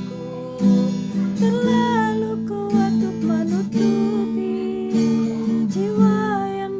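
Acoustic guitar strummed as a slow ballad accompaniment, with a voice holding and sliding between notes over it without clear words.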